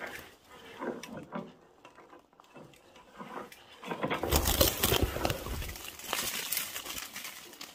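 Twigs and branches rustling and crackling as a long pole is worked through a treetop to snag a clump of mistletoe. Faint scattered rustles first, then a louder crackling rustle starting about four seconds in and lasting about three seconds.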